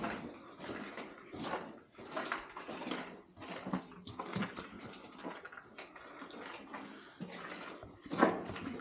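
Footsteps walking at about two steps a second through an enclosed underground tunnel.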